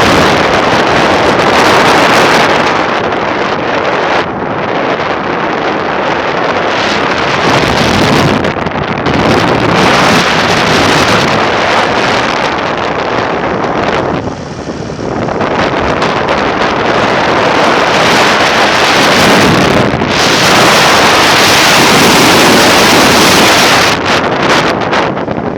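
Strong rainstorm wind gusting hard across the microphone, a loud rushing noise that rises and falls in waves and eases briefly about fourteen seconds in.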